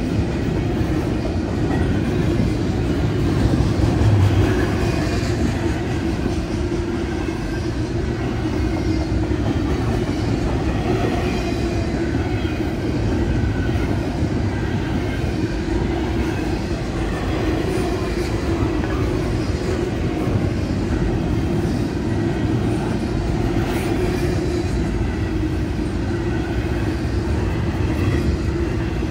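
A Norfolk Southern intermodal freight train rolling steadily past, its wheels clattering on the rails.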